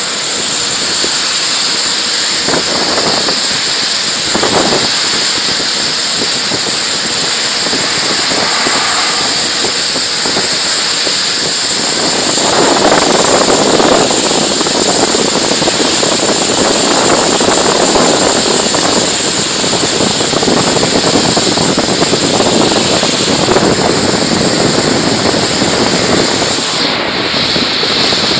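Compressed-air spray gun hissing as it sprays glaze onto a ceramic basin, a loud continuous hiss that swells and eases.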